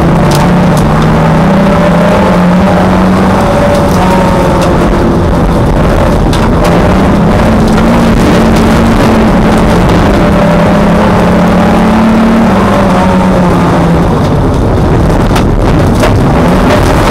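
Race car engine heard loud from inside the cockpit on a dirt track, running hard with its note rising and falling as the throttle is worked. A few sharp clicks near the end.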